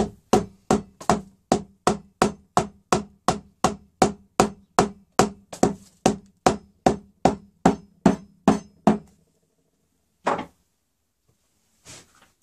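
Hammer blows in a steady rhythm, about three a second, for roughly nine seconds, then a pause and one last blow.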